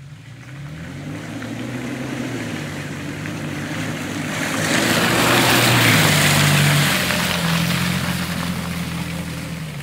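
A 4x4 truck's engine pulling hard through mud, its note shifting with the throttle, while a rush of tyre, mud and water spray swells about four and a half seconds in and eases off toward the end.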